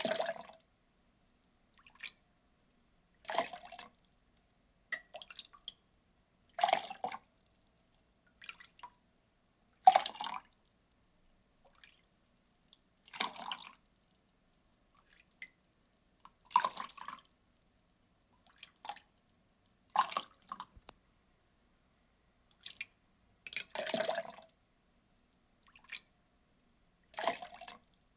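Water poured in short splashes, each lasting under a second and repeating about every three seconds, with fainter little splashes in between.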